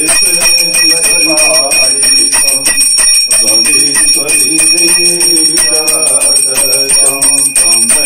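Brass puja hand bell (ghanti) rung continuously, a steady bright ringing, with voices chanting underneath.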